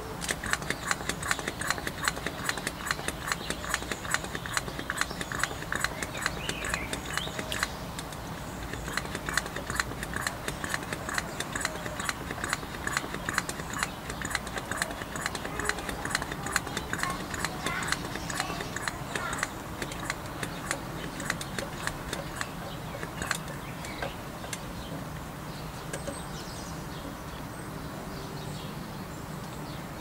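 Rapid, irregular clicking, several clicks a second, thinning out about three quarters of the way through.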